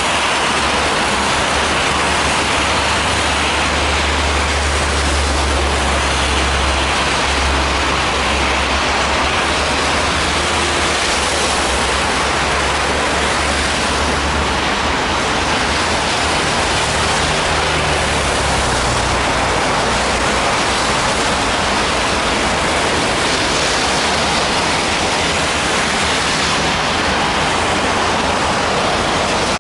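Strong wind blowing, a steady loud rushing hiss, with low rumbling buffets on the microphone now and then in the first part.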